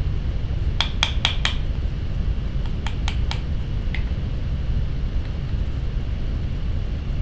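Light metallic clicks as small metal tools and a tube rivet are handled and set against a copper disc on a steel bench block. There are four quick clicks about a second in, three more around three seconds and a single one near four seconds, over a steady low rumble.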